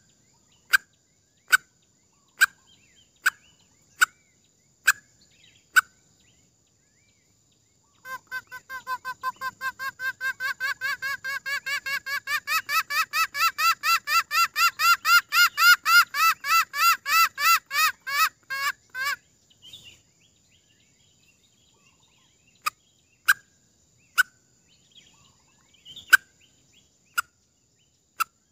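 Junglefowl lure call: short sharp single notes about once a second, then a fast, even run of clucking notes, about four a second, each rising in pitch. The run grows louder for about ten seconds and then stops, and the sharp single notes return near the end.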